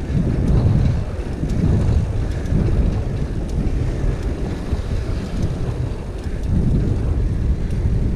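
Wind buffeting the microphone of a camera on a moving bicycle, over a steady low rumble from riding on pavement.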